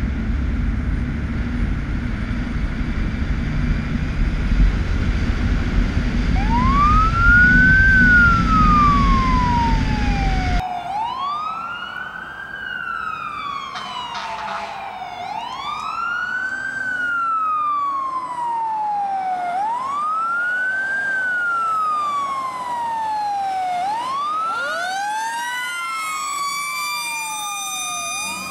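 Fire truck siren wailing, each cycle rising quickly and then falling more slowly, repeating about every four seconds. A heavy low rumble runs under it until a sudden cut about ten seconds in. Near the end a second, higher-pitched siren joins in.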